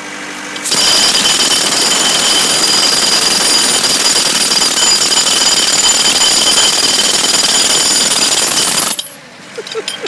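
A 60-pound pneumatic jackhammer breaking up concrete, starting just under a second in and hammering steadily and loudly for about eight seconds before it stops abruptly.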